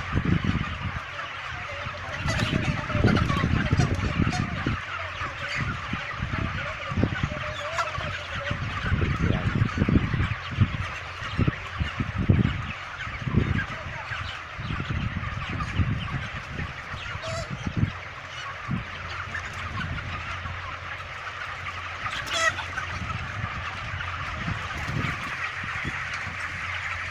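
A large flock of 28-day-old broiler chickens calling together, a dense, continuous chatter of many overlapping voices. Irregular low thumps and rumbles sound beneath it, mostly in the first half.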